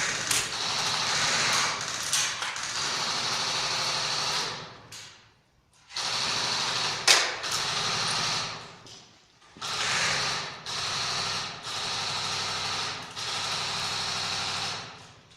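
Electric airsoft gun firing on full auto in several long bursts, a fast even buzz of shots with short breaks between them. A sharp crack stands out about seven seconds in.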